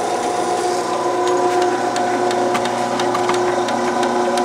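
Grizzly G0602 metal lathe running at 150 RPM, its belt and gear drive giving a steady whine. Irregular light clicks come in about a second in.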